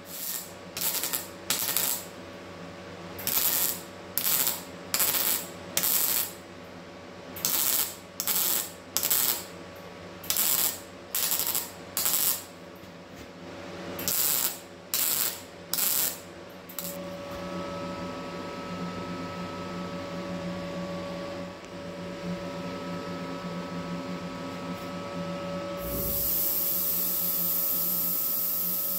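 Welder laying a series of short welds on a sheet-metal fender patch: about twenty brief crackling bursts, each under half a second, in groups of three or four. About two-thirds of the way in a steady motor hum with a whine takes over, joined near the end by a loud hiss.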